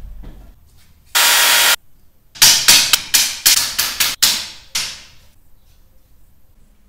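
A hammer striking about ten quick blows at a thin wooden strip on the floor, each blow sharp and quickly dying away. Just before the blows comes a short, loud hiss lasting about half a second.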